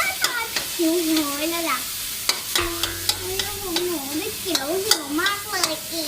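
Pork and holy basil stir-frying in a wok, sizzling, as a metal spatula clinks and scrapes against the pan again and again. A wavering pitched tone runs underneath.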